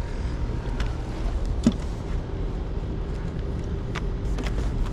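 Steady low rumble of wind on the microphone, with a few sharp clicks and one louder knock about a second and a half in.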